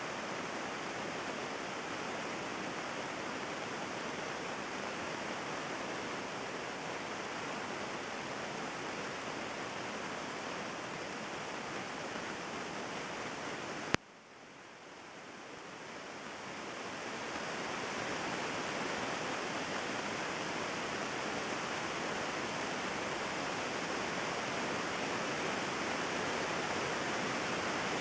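Heavy thunderstorm rain pouring steadily. About halfway a sharp click cuts in and the rain drops away suddenly, then swells back to full over a few seconds.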